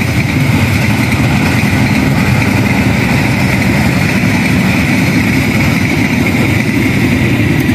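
Passenger train rolling past at speed: a steady, loud rumble of its locomotive and wheels on the rails.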